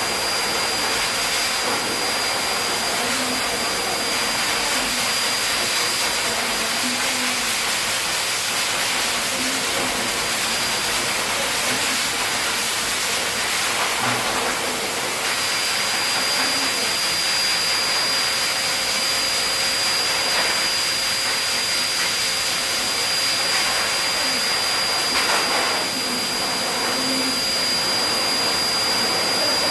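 High-velocity dog blower (grooming dryer) running steadily: a loud rush of air through the hose with a high motor whine, used to blow the dead undercoat out of a spitz-type dog's coat. The whine fades for a few seconds about midway and then returns.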